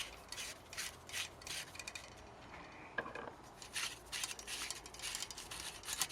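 Steel fork leg being screwed by hand onto a minibike's front fork tube: short, irregular metal-on-metal rubbing and scraping strokes, with a brief pause and a single knock about three seconds in.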